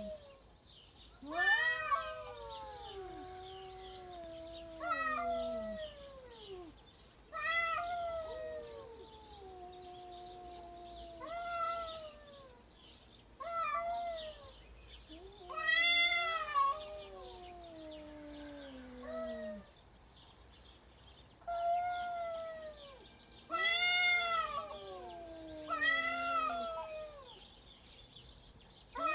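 Two cats yowling at each other in a territorial standoff between a resident cat and a trespassing stray. Long, drawn-out calls that slide down in pitch follow one another every two to three seconds.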